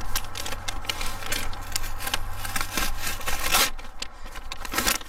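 Scraping and rustling handling noise, a run of short scuffs and clicks, over a low steady hum that stops about three seconds in.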